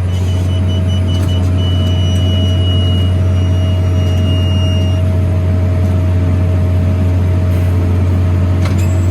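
New Holland T7040 tractor's six-cylinder diesel engine running steadily under load while pulling a McHale F550 baler through the rows: a constant low drone with a steady higher tone above it.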